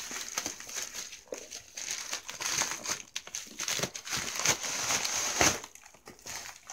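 White plastic shipping mailer crinkling and rustling as it is handled and opened.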